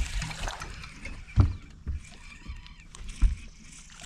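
A small hooked bass splashing at the water's surface while the line is reeled in on a spinning reel. Two short dull thumps come about a second and a half in and again about three seconds in.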